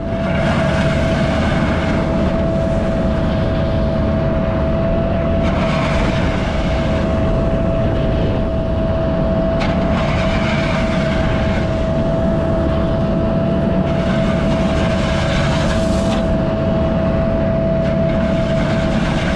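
Diesel engine running steadily, with a constant high whine over the engine noise and a few stretches of louder hiss.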